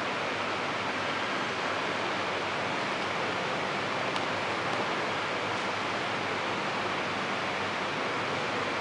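Steady, even hiss of background noise with no speech, with one faint tick about four seconds in.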